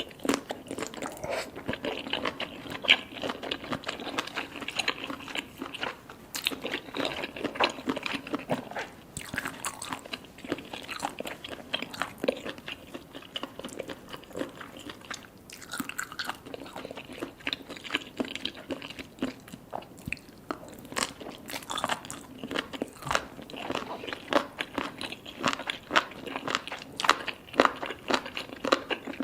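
Close-miked chewing of baby cuttlefish: steady, irregular soft crunches and wet chewing clicks, a little quieter for a few seconds around the middle.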